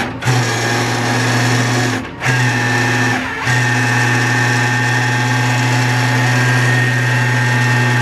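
Flatbed tow truck's PTO-driven hydraulic winch winding its steel cable onto the drum, a steady motor whine. It stops and restarts three times in the first few seconds, then runs on steadily.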